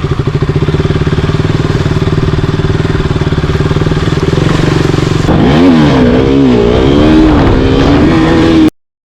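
A 200 cc single-cylinder motorcycle engine running steadily, then revving up and down several times over its last few seconds before the sound cuts off abruptly.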